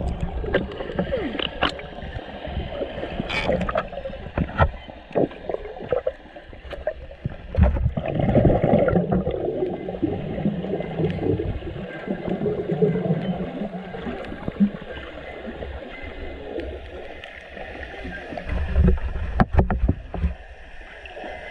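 Muffled underwater sound of a freediver swimming near a murky lakebed, picked up by a camera under the water: a continuous gurgling, rushing water noise with scattered clicks and knocks.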